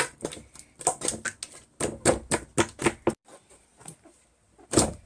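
Slime being squeezed and pressed by hand, making a run of irregular sticky clicks and pops, with the loudest pop near the end.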